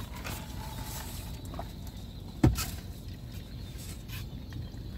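A foam drink cup handled and sipped from: a steady low rumble with a few faint taps and one sharp knock about two and a half seconds in.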